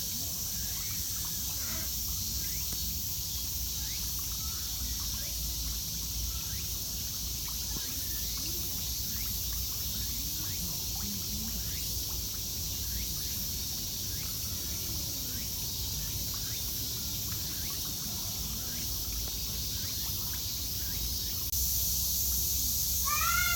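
Outdoor ambience of steady high-pitched insect drone over a low rumble, with faint scattered chirps; a short series of pitched calls comes near the end.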